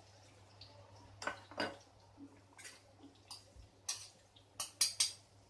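A stirring utensil scraping and knocking against a kadhai in a series of sharp strokes, several in quick succession near the end, as ginger-garlic-chili paste is stirred into hot oil.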